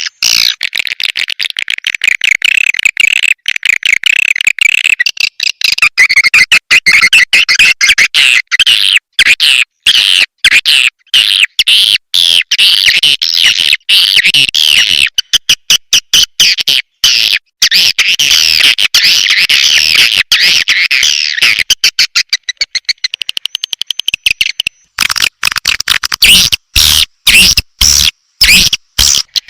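Recorded calls of edible-nest swiftlets: dense, loud twittering chirps, chopped by many abrupt short gaps. This is a swiftlet lure ('panggil') recording, played to draw swiftlets into a swiftlet house.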